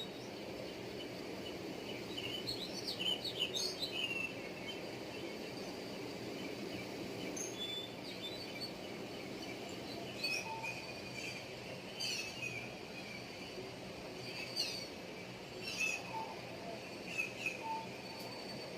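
Birds chirping: short calls and quick pitch glides come in clusters a few seconds in and scattered through the second half, over a steady low background noise.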